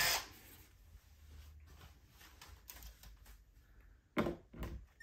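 A power drill spins down and stops right at the start, followed by quiet with faint handling taps. A few sharp knocks come a little after four seconds in.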